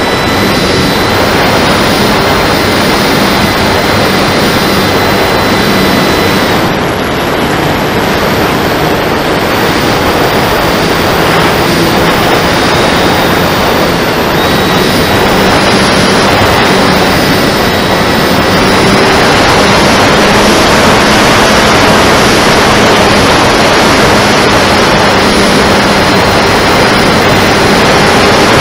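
Electric motor and 12x8 propeller of a radio-controlled flying wing in flight, heard close up from the airframe: a steady loud drone of the propeller with a faint high whine that shifts slightly as the throttle changes, over air rushing past. The sound dips briefly about seven seconds in and is a little louder in the second half.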